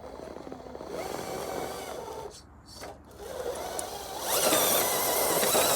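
RC rock crawler's electric motor and geared drivetrain whining as it drives over rock, with tyres scraping. About four seconds in the whine and scraping get much louder as it is pushed harder.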